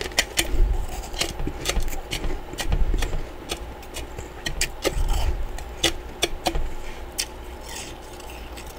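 Chunks of freezer frost crunching: irregular crisp cracks, several a second, with a few low thumps.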